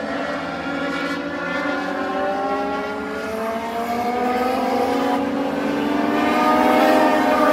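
A pack of Legends race cars, their Yamaha motorcycle engines running hard, with several engine notes overlapping. The pitch rises from about halfway as the cars accelerate, and the sound grows louder toward the end as the pack comes closer.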